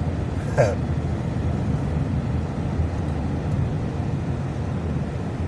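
Steady road and engine noise inside a moving car's cabin, a low even rumble with no distinct events. A brief voice sound comes about half a second in.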